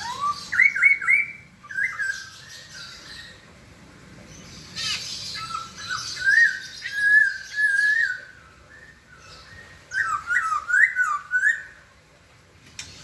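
A poksay (laughingthrush) singing in three bouts of loud whistled notes. Quick rising slurs and a longer warbled phrase are mixed with harsher, scratchy chatter, with short pauses between bouts.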